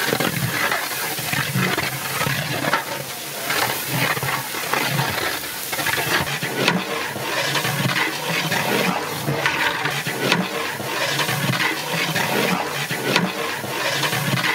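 A long-handled metal spatula stirring and scraping through sizzling onion-and-masala gravy in a large metal biryani pot, with irregular scrapes and knocks against the pot. Liquid is splashed in from a bowl at the start.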